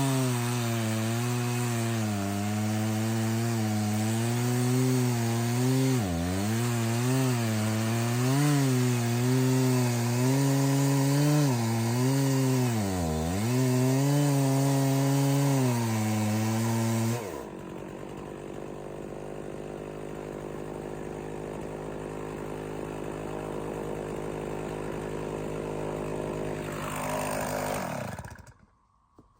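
Stihl 066 two-stroke chainsaw cutting through a big red oak log at full throttle, its pitch dipping a few times as the chain bogs in the wood. About two-thirds of the way through it drops to idle, then near the end it is shut off and winds down to a stop.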